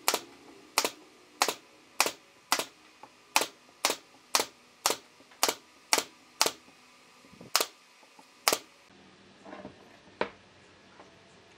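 Sharp knocks in a steady rhythm, about two a second and some fourteen in all, stopping about eight and a half seconds in; a couple of softer knocks follow.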